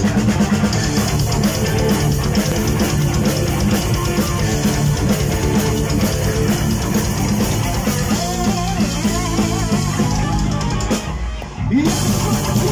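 Heavy metal band playing live: drum kit, electric guitars, bass guitar and keyboards together, breaking off for a moment about eleven seconds in before the full band comes back in.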